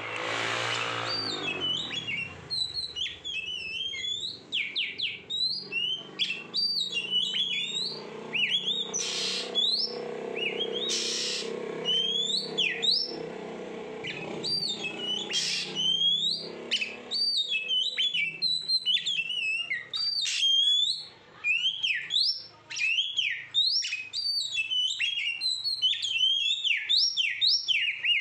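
Oriental magpie-robin singing: a rapid, continuous run of varied clear whistled notes, many sliding sharply up or down in pitch.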